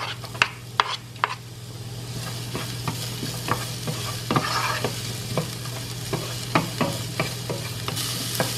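Diced onion sizzling in olive oil and garlic in a nonstick sauté pan, the sizzle building over the first couple of seconds as the onion goes in, while a wooden spoon scrapes and stirs, knocking sharply against the pan many times.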